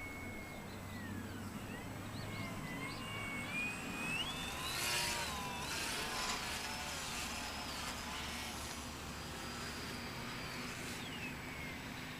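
Small radio-controlled foam model airplane's motor and propeller whining in flight. The pitch rises and falls as the plane manoeuvres and passes, growing loudest about five seconds in.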